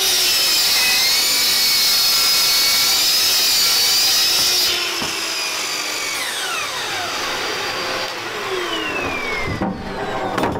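Hitachi compound mitre saw and its dust extractor running at full speed with a steady high whine. About five seconds in they are switched off and wind down with falling whines, and a clunk follows near the end.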